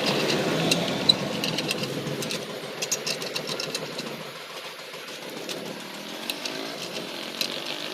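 An engine running with rapid clicking, loudest at first and fading about halfway through, then holding quieter.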